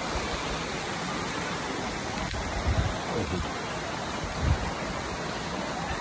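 Steady rush of a waterfall and stream. A few brief low thumps come partway through, near the middle and again later.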